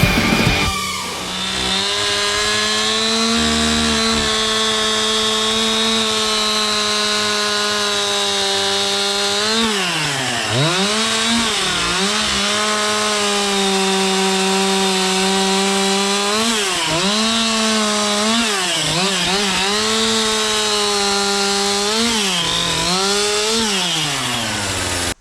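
Two-stroke chainsaw running at high revs, with a steady high engine note. In the second half its pitch sags sharply and recovers several times as it works into the wood, and then it cuts off suddenly.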